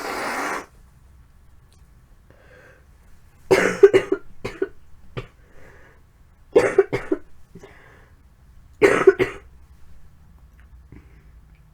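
A woman with a cold coughing in three fits, each a cluster of harsh coughs, a couple of seconds apart; the cough comes from a cold settled in her throat. A brief rush of breath comes at the very start.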